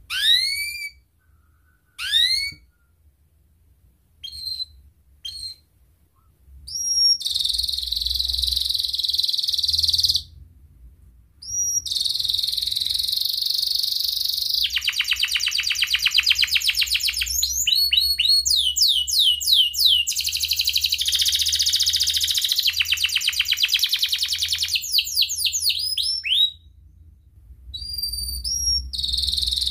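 Domestic canary singing: a few separate rising whistled calls at first, then from about seven seconds a long, loud song of fast trills and rapidly repeated notes, broken by short pauses near ten seconds and again near twenty-six seconds.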